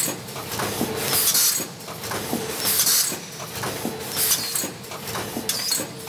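Double-roll-film stand-up-pouch packing machine running: its pneumatic cylinders cycle with a short burst of air hiss about every one and a half seconds, four times here, with mechanical clicks and knocks between strokes and a faint steady tone underneath.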